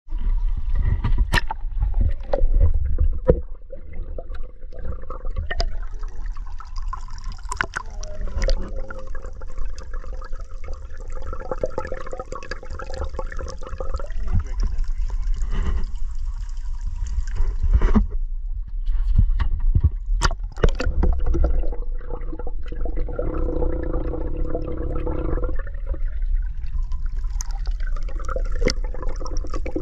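Water running and gurgling as an outboard motor is flushed with fresh water, over a steady low rumble with scattered sharp knocks.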